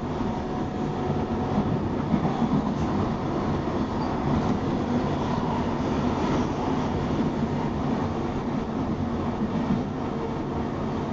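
A Queensland Rail SMU electric suburban train running along the line, heard from inside the carriage: a steady noise of wheels on rail and running gear.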